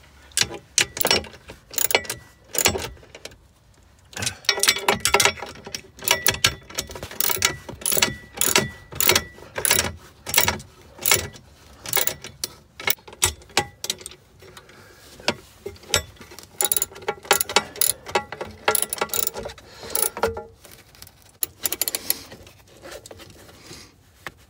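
Socket ratchet wrench clicking in quick runs with short pauses, as it tightens nuts onto carriage bolts in a sheet-metal bracket.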